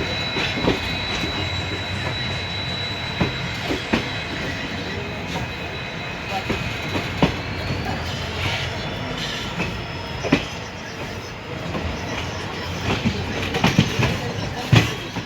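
Passenger train of ICF coaches running, heard from on board: a steady rolling rumble broken by irregular clicks and knocks of the wheels over rail joints, with a thin high whine through the first half.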